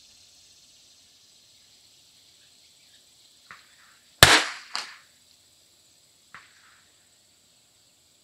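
A single shot from a Christensen Arms Ranger 22 bolt-action .22 LR rifle about four seconds in, sharp and loud with a short ringing tail, followed half a second later by a quieter second crack. Faint clicks come just before the shot and about two seconds after it.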